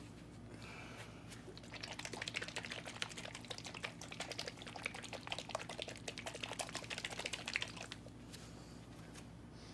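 Gloved hands handling a small bottle of strawberry scent: a dense, crackling rustle from about two seconds in until about eight seconds in.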